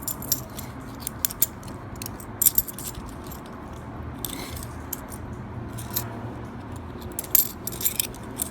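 Half-dollar coins clinking against each other as they are handled and sorted from an opened coin roll, in several short clusters of sharp metallic clicks.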